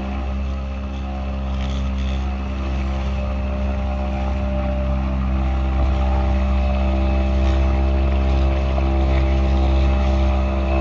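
Small petrol outboard motor running steadily with an even, unchanging pitch while under way.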